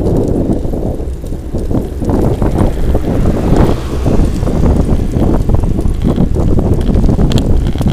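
Loud, gusty wind buffeting on the microphone of a camera riding on a moving road bicycle.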